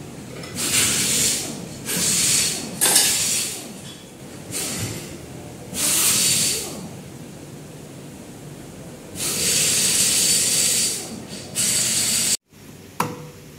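Compressed air hissing in about seven short bursts, each lasting from half a second to about two seconds, with quieter gaps between them.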